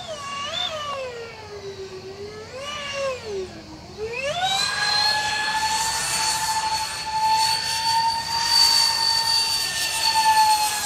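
Twin electric ducted fans of a Freewing Su-35S model jet whining in flight. The pitch sinks and wavers low as the throttle is eased for the first few seconds, then climbs sharply about four seconds in to a steady high whine at high power.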